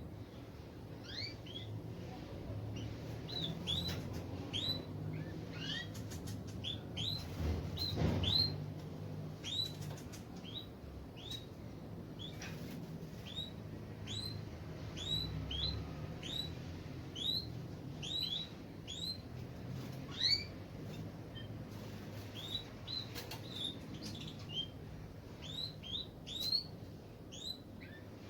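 Canaries in an aviary giving repeated short chirping calls, roughly one or two a second, with a few faint clicks about a quarter of the way in.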